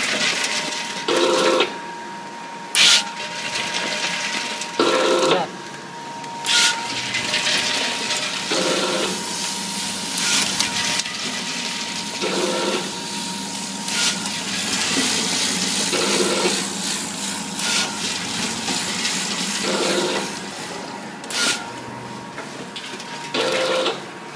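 Automatic vertical granule packing machine running through its bagging cycle, packing snack chips. A sharp clack about every four seconds alternates with a longer, lower rustling burst, over a steady mechanical hiss.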